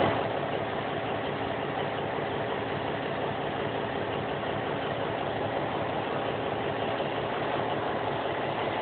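Guascor V12 twin-turbo 670 hp boat engine idling steadily.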